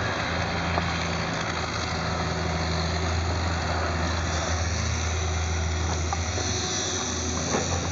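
Diesel engine of a compact excavator running steadily with an even low hum.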